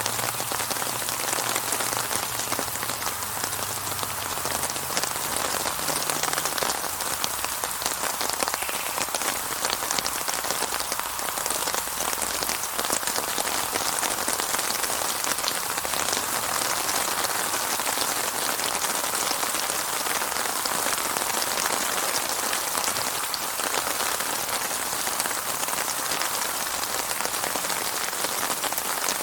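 Steady rain falling on a surface: a dense, even patter of countless drops with no thunder.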